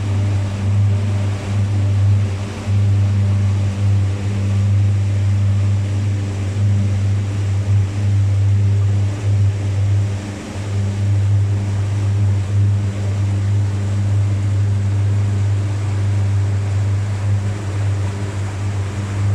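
The diesel engine of an abra, a wooden water taxi on Dubai Creek, running steadily under way: a low, even drone, with water rushing along the hull.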